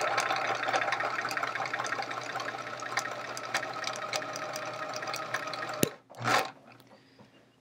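Sewing machine running steadily as it stitches a seam, stopping suddenly with a sharp click about six seconds in, followed by a brief scrape.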